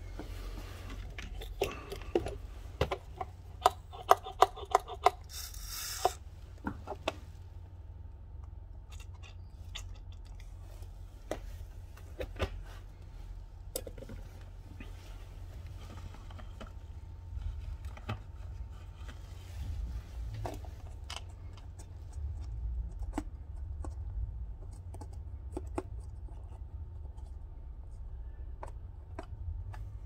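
Small hand tools and parts being handled during a repair of a Bluetooth speaker's micro USB charging port: scattered sharp clicks and taps, thickest in the first several seconds, with a brief hiss about six seconds in, over a steady low hum.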